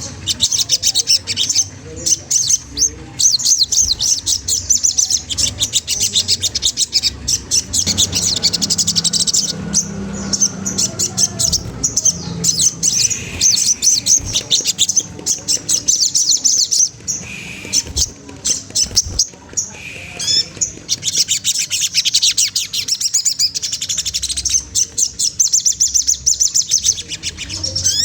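Sogon trotol singing a fast, high-pitched chattering song of rapid chips in long runs, thinning briefly in the middle.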